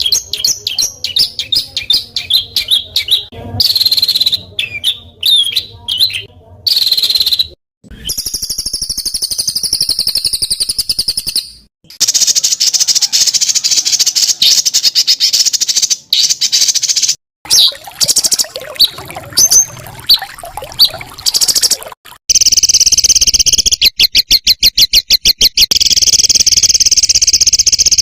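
Songbird masteran recording of rapid, harsh 'tembakan' calls: quick sharp high chirps in fast succession, then long dense buzzing rattles, each stopping abruptly where the recording is cut.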